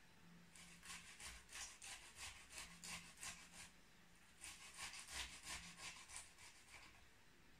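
Carrot grated on a metal box grater: quick rasping strokes, about three a second, in two runs with a short pause about halfway.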